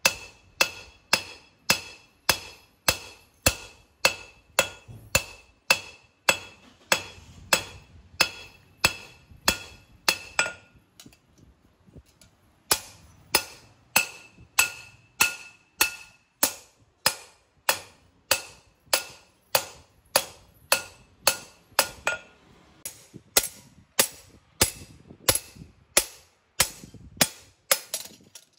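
Hammer blows on steel over an anvil, hand-forging a knife blade: steady strikes about two to three a second, each with a bright metallic ring. There is a break of about two seconds a little before halfway, then the hammering resumes.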